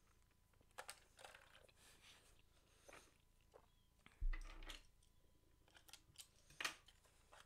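Faint scattered clicks and crinkles of AAA batteries and their packaging being handled on a desk, with a dull bump about four seconds in.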